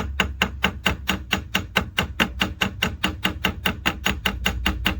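Rapid, even metal tapping on a 2007 Honda Odyssey's ABS valve block, about five or six taps a second, with a short ring on each tap. The tapping is meant to free its valves, which are clogged with dirty brake fluid and are not letting pressure through to the rear brake lines.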